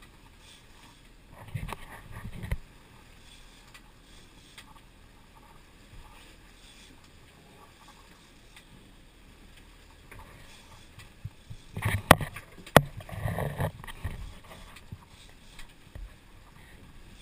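Sport-fishing boat at sea: a steady low wash of wind and water, broken by knocks and bumps from the boat. Two sharp knocks come about twelve seconds in.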